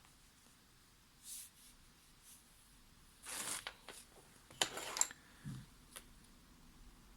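Soft rustling and scraping from painting materials being handled on a desk, with a few sharp little clicks and a dull tap near the middle.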